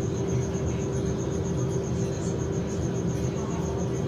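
Steady background hum over a low rumble, with a faint high tone pulsing several times a second.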